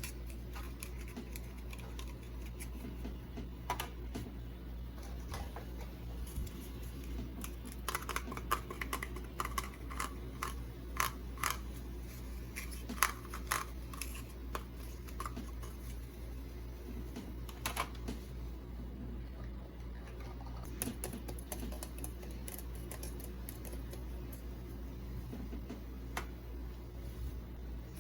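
Small objects handled by hand in an ASMR unboxing: irregular light clicks and taps, coming in quick clusters now and then, over a steady low hum.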